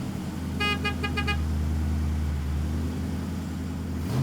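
A vehicle horn sounds four quick short toots over a steady low engine rumble. The rumble cuts off abruptly near the end.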